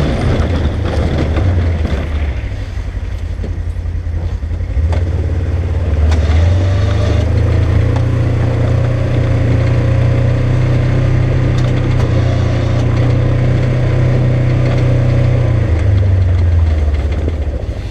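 Polaris General XP side-by-side's engine running while plowing snow. It revs up about five seconds in, holds at higher revs, and drops back near the end.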